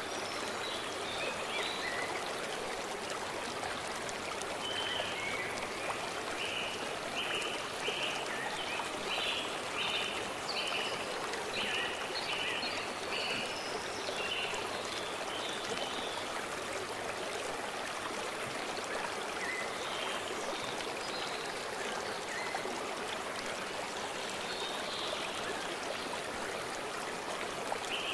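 A stream rushing steadily over stones, with birds singing over it. Through the middle, one bird repeats a short note a dozen or so times, a little more than once a second, and a few other brief chirps come and go.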